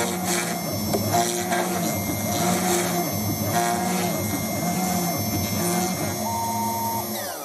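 DIY CNC router milling a contour pass on a wooden propeller. Its stepper motors sing in steady tones that jump in pitch every second or so as the axes change speed and direction, over the high whine of the spindle. Near the end the pass finishes and the spindle spins down, its whine falling quickly.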